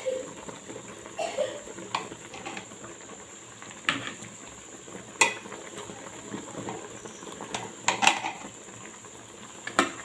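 A metal spoon knocking and scraping against a cooking pot several times, over the steady bubbling of a simmering pot of soup.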